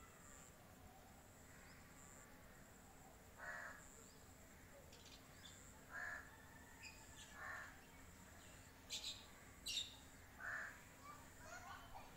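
Several short, faint animal calls spaced a second or two apart, followed later by a few sharp, high chirps, over a quiet background.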